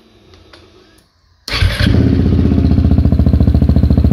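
KTM 690 SMC R single-cylinder engine starting through a newly fitted LeoVince Nero full exhaust. After a few faint clicks it fires suddenly about a second and a half in and settles straight into a steady, evenly pulsing idle, not revved.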